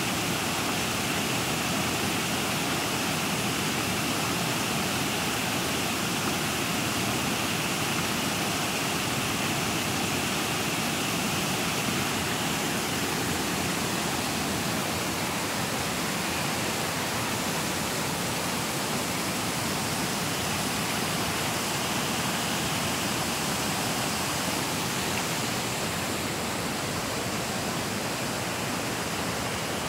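Fast river water rushing and churning below a weir, a steady, unbroken rush of white water.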